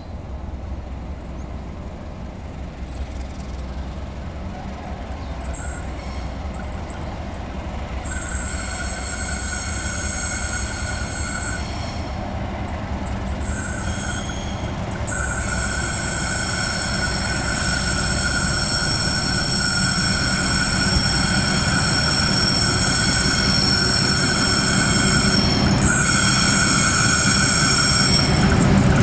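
Diesel-electric locomotive hauling a passenger train through curved station trackwork, its engine rumbling and growing louder as it approaches. From about eight seconds in, the wheels squeal on the curves in a high steady tone that breaks off and returns several times.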